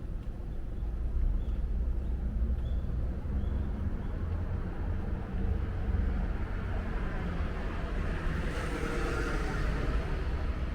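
Street traffic: a steady low rumble, with a vehicle passing close by, its tyre noise swelling to a peak about nine seconds in and fading.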